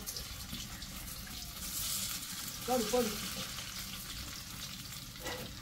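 Masala-coated fish pieces deep-frying in hot oil in an iron kadai: a steady sizzle, with a brief faint voice about three seconds in.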